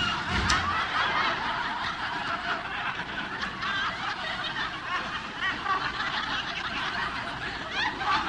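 Studio audience laughing loudly and continuously.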